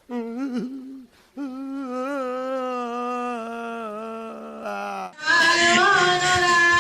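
Devotional kirtan singing: a single voice sings long, wavering held notes with a few short breaks. About five seconds in, louder and fuller singing cuts in.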